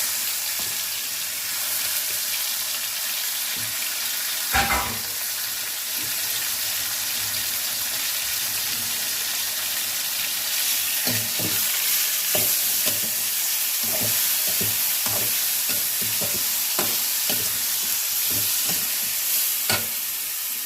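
Chicken pieces sizzling in hot oil with spices in a pan, a steady frying hiss. A utensil stirring and scraping the pan adds short knocks, one loud knock early and a run of clacks through the second half.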